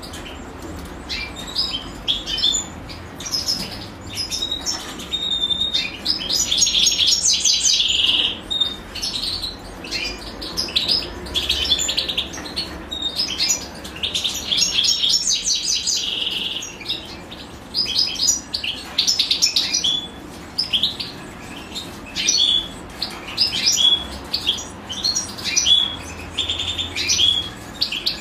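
European goldfinches chirping in rapid high twitters throughout. Two spells of dense, loud chirping come about six and fourteen seconds in: a brood of goldfinch nestlings begging while the female feeds them.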